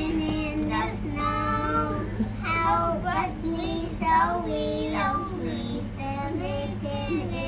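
Young children singing a simple song together in long held notes.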